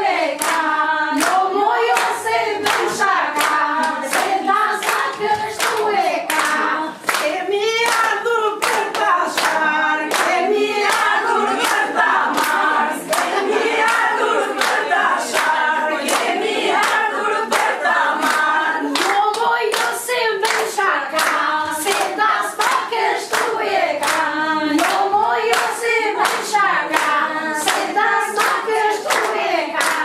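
A group of women singing a traditional Albanian wedding song together, keeping time with hand claps at about two a second.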